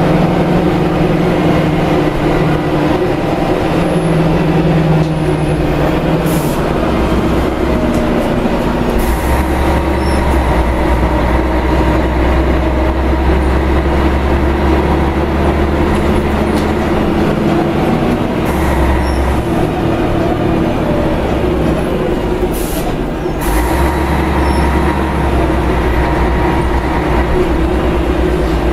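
Scania DSC11 11-litre six-cylinder turbo diesel bus engine running under way, heard from inside the bus cabin over road rumble. The deep low rumble drops away and comes back a few times as the bus drives.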